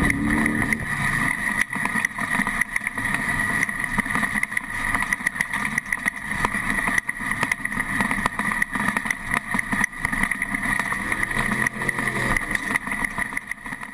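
Off-road desert race truck running at speed, its engine note mixed with a steady whine and a constant stream of sharp knocks and rattles. The loudness rises and falls as it goes.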